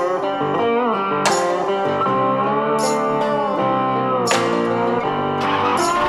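Background music: a plucked guitar playing in a slow blues style, with notes that bend and slide in pitch.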